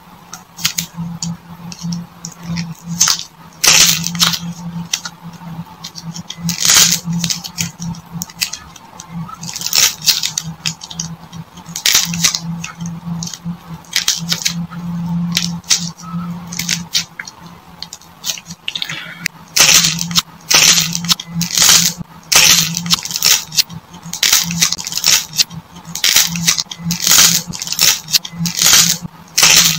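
A ball of clay with a dried, hardened crust being squeezed and torn open by hand, the crust cracking and crackling in many sharp, irregular cracks that come in clusters with short pauses between. A steady low hum runs underneath.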